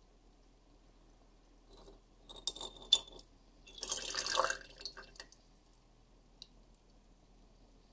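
Aqua regia poured into a glass beaker over relay contacts. A few sharp glass clinks come about two and a half seconds in, then about a second of pouring and splashing liquid, the loudest part, followed by a few small drips and ticks.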